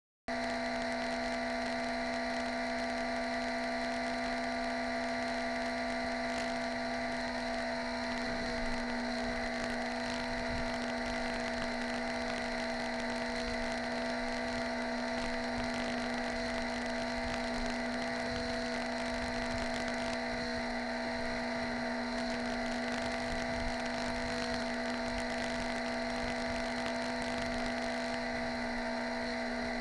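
Steady electrical hum and hiss, several fixed tones over an even noise, unchanging throughout.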